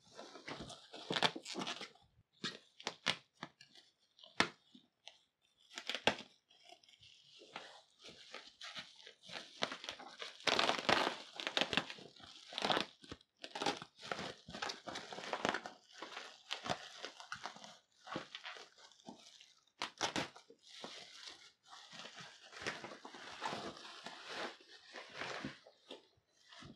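Plastic bubble wrap crinkling and rustling in irregular bursts as it is pulled off and handled around a cardboard box.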